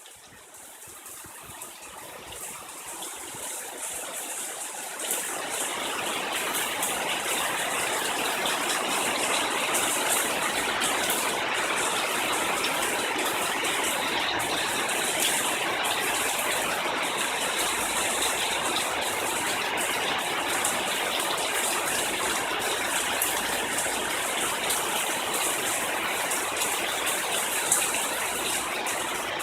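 Heavy monsoon rain pouring down in a steady, dense rush. It grows louder over the first few seconds, then holds steady.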